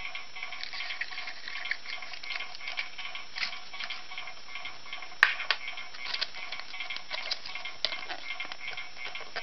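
Soft instrumental background music with a steady ticking beat, over light clicks and crinkles of a plastic surprise-egg capsule and a paper sticker sheet being handled. One sharp click about five seconds in is the loudest sound.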